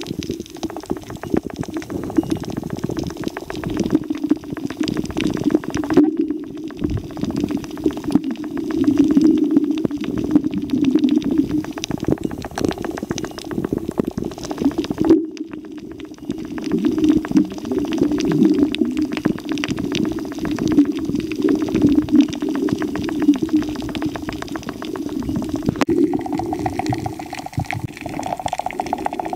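Water gurgling and bubbling, muffled as heard through an underwater camera housing, over a steady low rumble. It breaks off and changes abruptly a few times.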